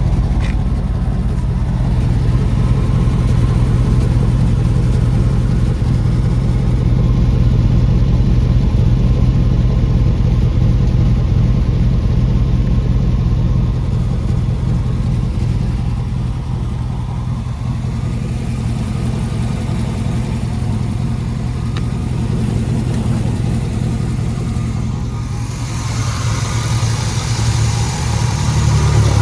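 The 1987 Chevy Silverado pickup's engine running at a steady speed, a low, even hum. It drops a little in level about halfway through, and a broader rushing noise joins near the end.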